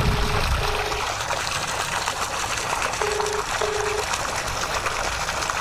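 Telephone ringback tone through a mobile phone's loudspeaker: two double rings about three seconds apart. This is a call to a GSM motor starter that has not been answered yet. Under it is the steady gush of water pouring from a tubewell outlet pipe, with the pump motor still running.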